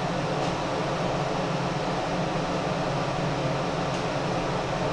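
Ventilation fan running with a steady hum and hiss.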